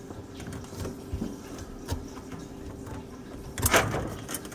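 Small clicks and knocks of plumbing parts and tools being handled, with a louder rattling clatter about three and a half seconds in, over a faint steady hum.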